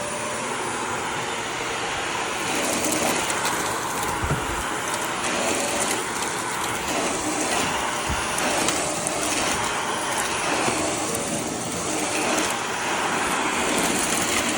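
Shark Navigator Lift-Away upright vacuum cleaner running at full power: a loud, steady rush of suction with a high motor whine.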